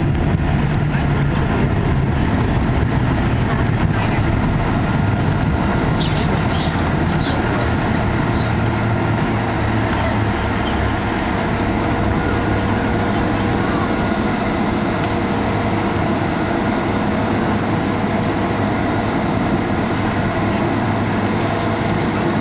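Steady cabin noise inside a Boeing 767-200 rolling on the ground after landing: a loud rumble of engines and airflow, with a low drone that settles lower in pitch over the first several seconds.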